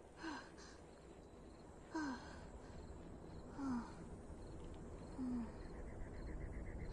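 An animated young dinosaur breathing softly as it settles back to sleep: four short sighing breaths, each dropping in pitch, about every second and a half. A faint, evenly pulsing insect-like trill comes in near the end.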